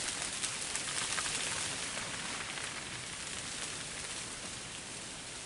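Freezing rain falling on ice-glazed tree branches: a steady patter of many small ticks, a little louder in the first couple of seconds.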